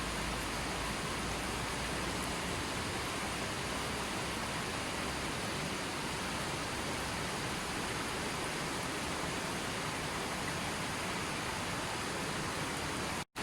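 Steady, even rushing of water, like a waterfall, stream or rain, with no other events. It cuts out to silence for an instant near the end.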